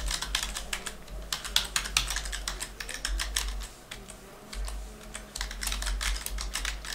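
Typing on a computer keyboard: quick runs of key clicks, with a short pause about four seconds in before the typing resumes.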